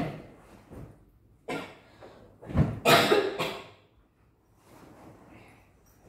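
Sofa cushions being handled: a sharp thump right at the start, then rustling. A heavier thud a little before the 3 s mark is followed by about a second of loud fabric flapping and rustling as a cushion or cover is lifted and shaken.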